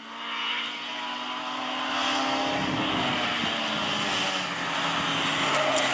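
Citroën Saxo rally car's engine running hard as the car approaches, growing louder, then its pitch falls gradually through the second half as the driver comes off the throttle for a bend. A couple of faint sharp clicks sound near the end.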